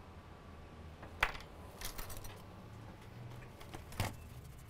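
A few light clicks and taps of small hand tools being handled at the workbench as flux is laid around the chip, a sharper click about a second in and another near the end, over a faint low hum.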